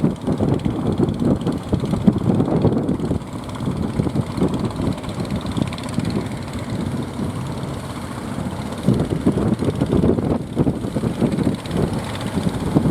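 Strong wind buffeting the microphone in gusts, a rough, uneven rumble that eases off in the middle and picks up again near the end.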